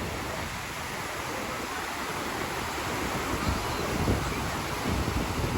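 Sea surf washing steadily onto the beach, with wind buffeting the microphone in uneven gusts that grow stronger in the second half.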